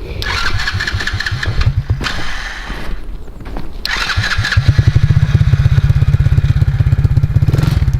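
ATV engine being cranked with its electric starter: a first attempt of about two seconds does not catch, then a second crank about four seconds in starts it, and it settles into a steady idle.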